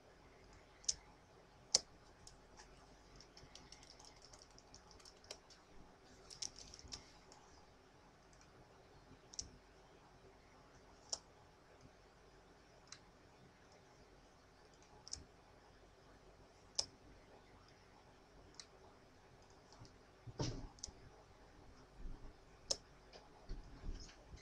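Faint computer mouse clicks, single sharp clicks spaced irregularly every second or two, with a duller thump and some handling noise near the end.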